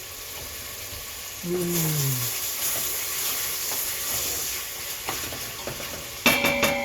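Bacon sizzling in a frying pan, the sizzle growing louder about a second and a half in. Near the end a sharp clink is followed by a short ringing tone.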